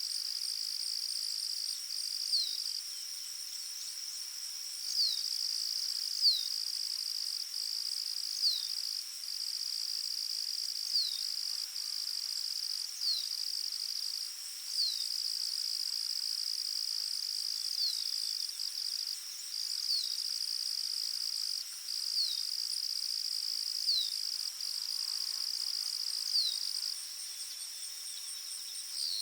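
Steady high-pitched trilling of insects such as crickets, with a faster pulsing layer above it. A bird's short falling call repeats about every two seconds and stands out as the loudest sound.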